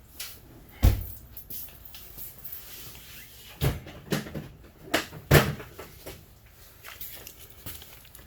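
About five sharp knocks and thumps, spread unevenly over several seconds, of hard objects being handled and set down; the loudest comes about five seconds in.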